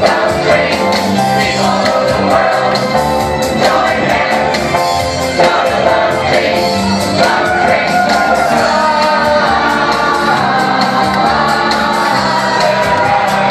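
A gospel choir singing with instrumental backing, the voices over a steady bass line.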